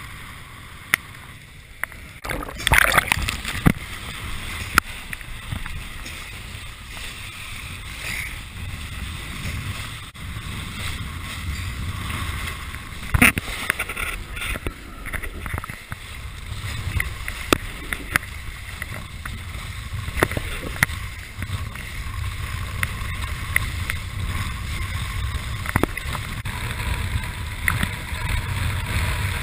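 Kiteboard ride heard from an action camera on the rider: wind buffeting the microphone as a low rumble, with water rushing and hissing under the board. A few sharp knocks break the steady noise, the loudest about 3 s and 13 s in.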